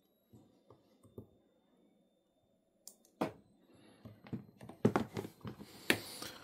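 Sharp snaps of a capacitive spot welder's handheld probes firing pulses that weld nickel strip onto 18650 cell terminals, the loudest about three seconds in. Over the last couple of seconds come quick clicks and rustling as the battery pack is handled.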